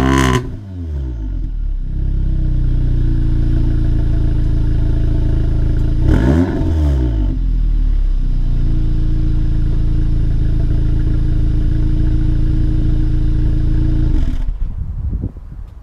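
Audi S3's turbocharged four-cylinder engine through a resonator-deleted exhaust. It comes down off a rev at the start, then idles loudly and steadily, with one quick throttle blip about six seconds in. The sound drops away near the end.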